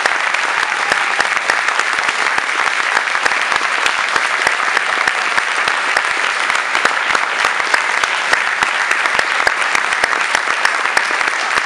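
Audience applauding steadily, a dense mass of hand claps.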